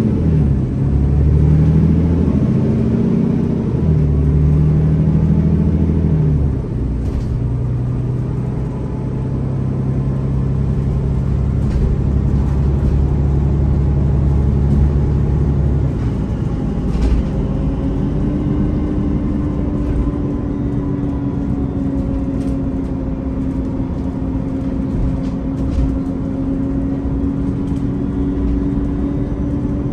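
MAN Lion's City articulated bus's diesel engine and ZF automatic gearbox, heard from inside the cabin. The engine note climbs and drops back several times in the first six seconds as the gearbox shifts up under acceleration, then runs at a steady drone, and from about eighteen seconds a steady whine carries on over the road noise.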